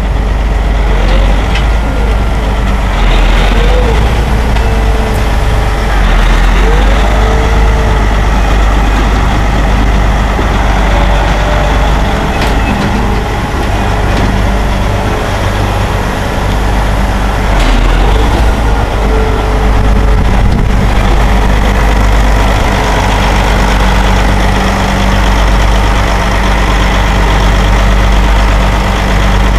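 Challenger MT965 articulated tractor's Cat diesel engine running steadily at low speed as the tractor creeps onto a lowboy trailer, with a deep rumble and a few short rising-and-falling tones in the first several seconds.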